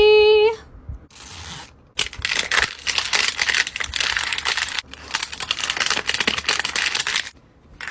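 Silver plastic wrapper crinkling and tearing as it is peeled off a Mini Brands capsule ball, a dense crackle from about two seconds in until near the end, with a brief break midway.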